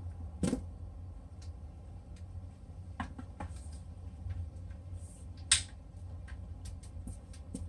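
Scattered small clicks and knocks from hands handling an electric fishing reel and turning its crank handle, with a sharp click about half a second in and a louder one about five and a half seconds in. A steady low hum runs underneath.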